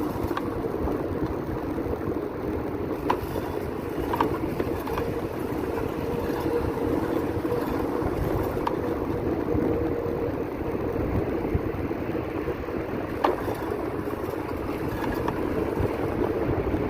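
Bicycle being pedalled, with steady wind and road noise and a few sharp clicks at uneven intervals. The clicks are the unexplained clicking that comes while pedalling.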